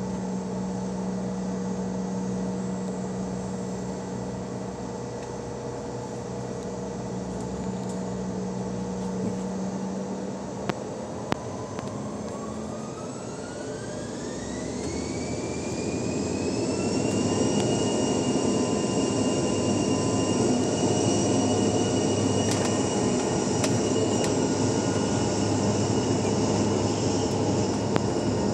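Bombardier CRJ-700's twin GE CF34 turbofans heard from inside the cabin, running at a low steady hum, then spooling up about halfway through: a rising whine that levels off into a louder, steady run. Two short clicks just before the spool-up.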